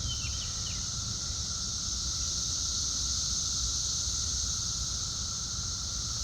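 Chorus of periodical cicadas droning steadily in the trees, a continuous high whirring with a lower steady tone beneath it, over a low rumble. A few quick bird chirps come in the first second.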